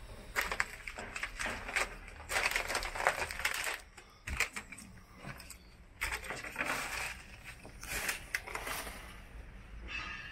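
Footsteps crunching over rubbish and debris strewn on a bus floor, in irregular bursts of crackling and crushing, with a quieter pause partway through.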